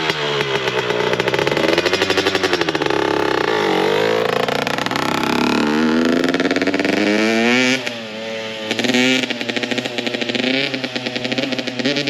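Two-stroke dirt bike engine being ridden, revving up and down so that its pitch rises and falls several times. From about eight seconds in the note turns choppy as the throttle is opened and closed in quick stabs.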